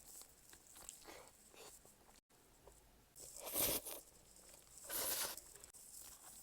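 Close-miked crunchy eating: two loud crunching bites about three and a half and five seconds in, with quieter chewing sounds around them.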